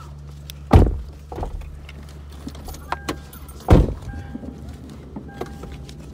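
Two heavy thumps of car doors being shut, about three seconds apart, inside the car's cabin over its steady low hum, with a few short high beeps after the second one.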